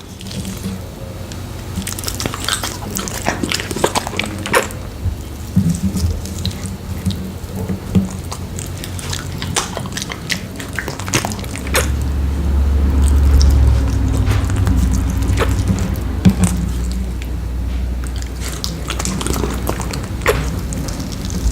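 A dog eating rotisserie chicken close to the microphone: irregular wet smacking, licking and chewing clicks. A low rumble joins in for a few seconds around the middle.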